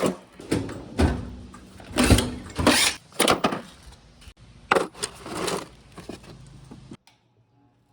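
Irregular clunks, knocks and scrapes of objects being handled, about a dozen strokes of varying loudness, cutting off abruptly about seven seconds in.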